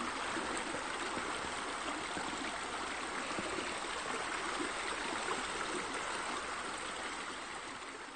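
Steady running, splashing water from pool water features, bubblers and a spillway, that begins to fade near the end.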